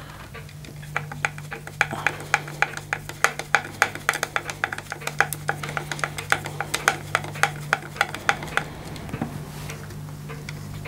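Screwdriver turning out the long stock bolt of a Daisy Red Ryder BB gun: a run of small uneven metallic clicks, about three a second, as the blade works in the slot and the bolt turns. The clicks die away a couple of seconds before the end.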